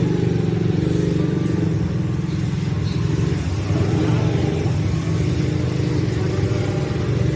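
An engine running steadily, a low pulsing rumble.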